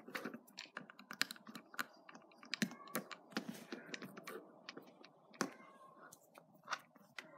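Small plastic Lego pieces clicking and tapping as figures are set onto the studs of a clear Lego light brick: a string of irregular sharp clicks, faint.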